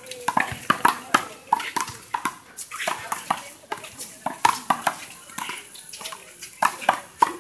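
A rapid, uneven run of sharp smacks and knocks from a handball rally: a small rubber handball slapped by hand against the wall and bouncing off the court, mixed with players' quick footsteps.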